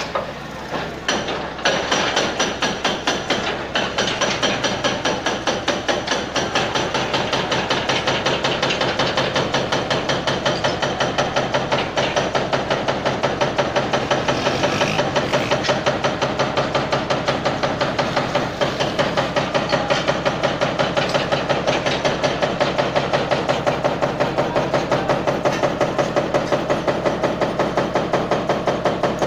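Demolition machinery at work: a diesel engine running under a steady, rapid hammering of about four blows a second that starts about two seconds in.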